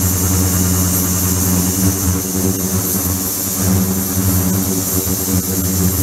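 Flow-through ultrasonic cleaning bath (ultrasonic shower) running: a steady buzzing hum with a hiss on top, from the ultrasonic system and liquid-circulation pump as water streams into the tank.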